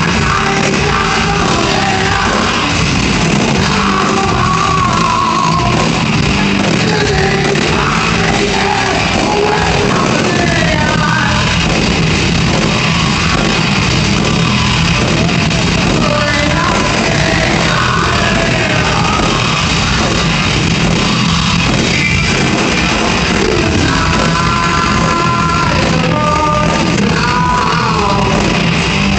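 Heavy metal band playing live: distorted electric guitars, drums and singing, loud and steady, heard from within the audience in a large hall.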